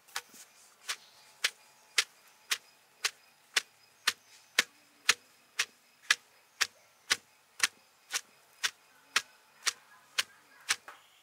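Long wooden pestle pounding fresh sweet corn kernels in a wooden mortar: sharp, evenly spaced knocks, about two a second, as the kernels are crushed.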